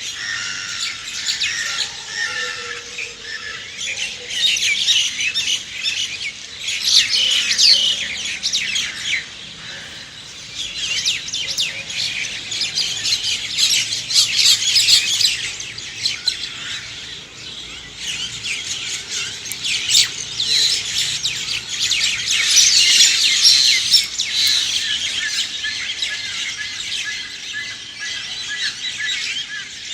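A chorus of many songbirds chirping and calling at once, a dense tangle of quick high chirps that swells and eases in bouts every few seconds.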